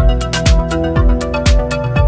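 Electronic background music with a steady kick-drum beat, about two beats a second, over held synth notes.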